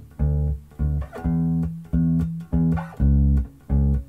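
Four-string electric bass played fingerstyle: a slow line of short, damped low notes, about two a second, stepping between a few pitches, with one note held a little longer.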